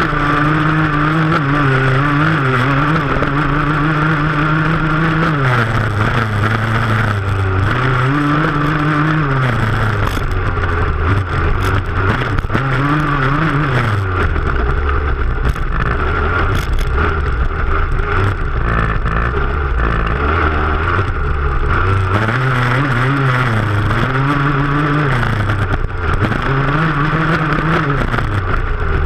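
Dirt bike engine being ridden hard across a stubble field, its pitch climbing under throttle and dropping away again over and over as the rider accelerates, shifts and backs off.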